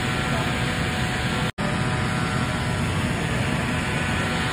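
A large engine running steadily, a constant low rumble with a faint hum. It drops out for an instant about a second and a half in.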